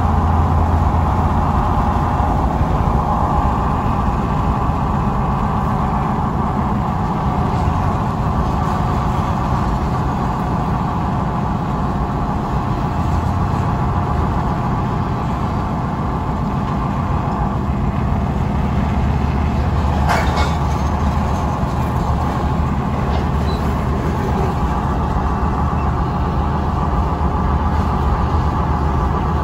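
Steady driving rumble and road noise from a pickup truck moving alongside a rolling coal train of loaded hopper cars. A single sharp knock about twenty seconds in.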